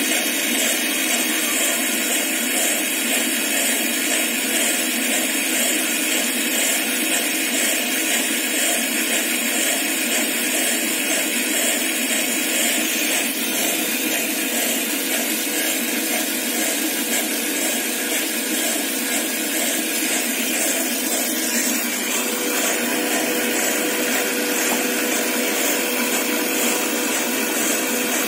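Automatic cotton wick making machine running steadily with a constant mechanical whirr as it produces cut cotton wicks. A steady low hum joins about two-thirds of the way through.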